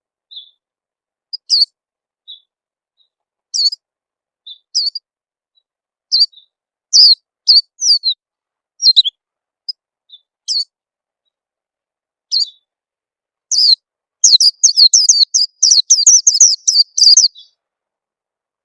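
Peleci bird calls used as a lure: short, high, sharp chirps spaced a second or so apart, then a rapid run of chirps from about three-quarters of the way through.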